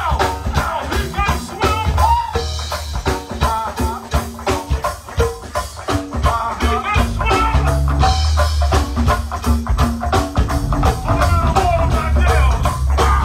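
Live go-go band playing a steady, driving beat on congas and drum kit over a heavy bass line, with a singer's voice on top.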